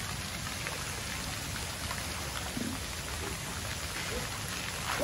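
Steady rushing noise of surf washing on a sandy beach.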